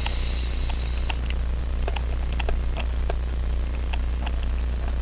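A steady low hum, with scattered faint clicks of small tools touching watch parts at irregular intervals. A thin high whine fades out about a second in.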